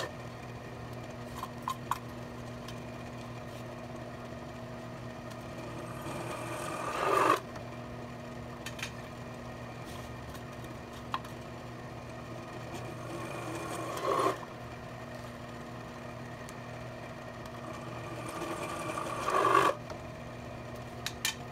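Millrite milling machine running as a drill press, a center drill cutting holes in 1/8-inch steel angle iron. The spindle hum is steady, and three times a cutting noise builds for a second or so and then stops abruptly as a hole is drilled. A few light clicks come between the holes.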